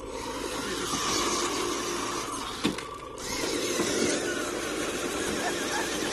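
Electric motor and gearbox of a radio-controlled rock crawler whining as it grinds up a steep rock face, with a single sharp knock a little under three seconds in.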